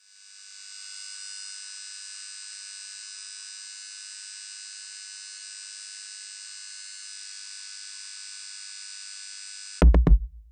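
Synthesizer drone: a steady, high-pitched electronic buzz that fades in and holds, cut off near the end by a loud, deep bass boom that rings out.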